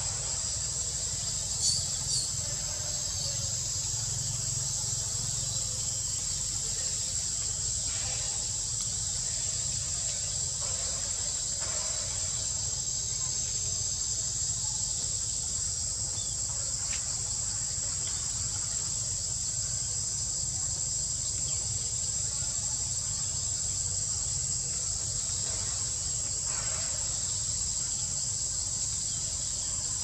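Steady, high-pitched insect chorus droning without a break, with a low rumble underneath and a few faint clicks about two seconds in.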